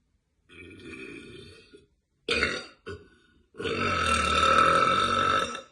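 A woman burping several times: after a quieter sound, a short loud burp about two seconds in and a brief one just after, then one long, loud belch of about two seconds, the loudest, held at a steady pitch.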